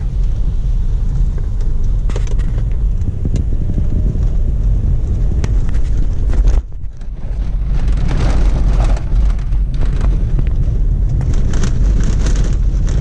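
Cabin noise of a car driving on a gravel road: a steady low rumble from tyres and engine, with scattered clicks and knocks. The sound drops out for a moment about halfway through.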